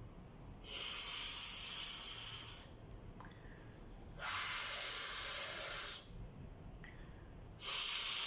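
A person blowing air out through the mouth in three long voiceless hisses, each about two seconds, with short pauses between. This is a breath-out exercise in a speech-sound drill.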